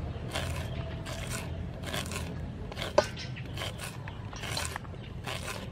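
A knife scraping kernels off a cob of white corn into a stainless steel bowl, in repeated downward strokes about two a second, with one sharp clink about three seconds in.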